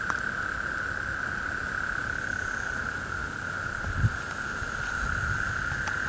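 A night chorus of frogs and insects calling steadily over floodwater, with a high insect buzz above the frog calls. There is a brief low thump about four seconds in.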